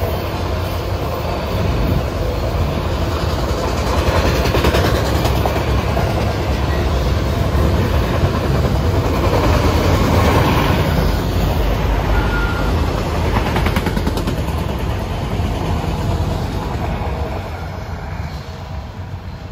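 Norfolk Southern freight train cars rolling past close by, a steady rumble of steel wheels on the rails. It fades away near the end as the last cars go by.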